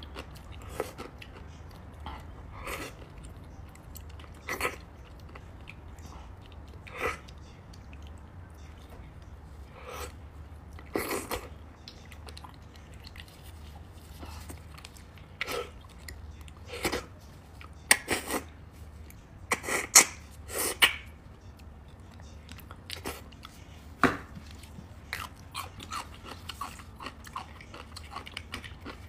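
Close-miked eating sounds of braised beef bone marrow and meat being bitten and chewed: irregular wet smacks and clicks, with a louder cluster about two thirds of the way through.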